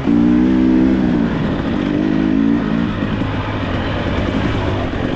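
Husqvarna TX 300 two-stroke dirt bike engine running while being ridden. Its pitch holds steady for about a second, turns rough and uneven, steadies briefly near the middle and turns rough again as the throttle is worked on and off.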